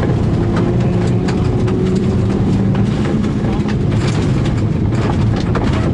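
Turbocharged rally car engine running steadily on a gravel stage, heard from inside the cabin, with a constant low rumble and frequent sharp ticks of stones and gravel hitting the car.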